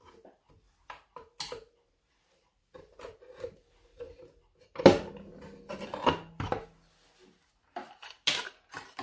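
Screwdriver clicks and the scraping knocks of a wooden base panel being worked loose and lifted out of a slate clock case. About five seconds in, a sharp knock sets the coiled wire clock gong mounted on the panel ringing briefly.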